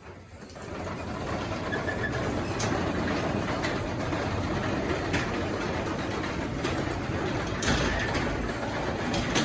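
Craftsman 3/4 horsepower belt-drive garage door opener running to close the door: a steady motor and rolling-door rumble that builds over the first second, with a few sharp clicks as the door travels down its tracks.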